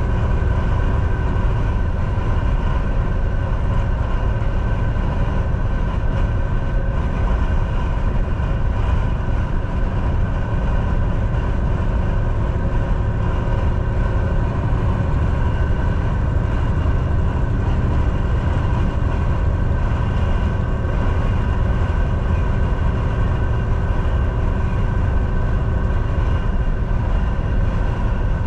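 Semi truck driving: a steady, unchanging low rumble of engine and road noise with a constant whine above it.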